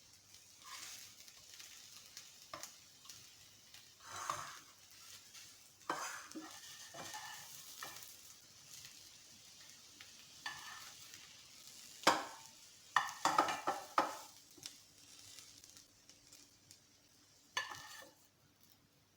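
A spatula scraping and knocking against a frying pan as a cooked egg omelette is lifted out, over a faint sizzle of oil. The clatters come in short, scattered bursts, loudest in a cluster a little past the middle and once more near the end.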